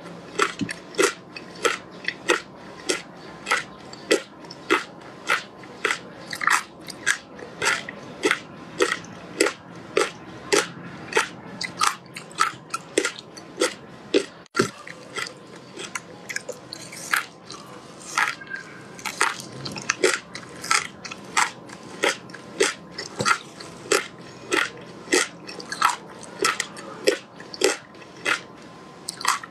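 Frozen passion fruit pulp, ice and seeds, being crunched between the teeth in a steady rhythm of about two crisp crunches a second.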